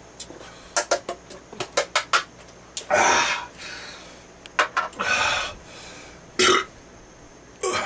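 A man burping four times after chugging a shotgunned can of beer, the first a longer, loud one about three seconds in. Before the burps comes a quick run of sharp clicks and taps.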